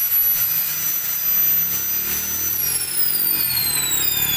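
A high, steady electronic whine that begins gliding down in pitch a little past halfway, with more falling tones joining it near the end, over a faint low hum.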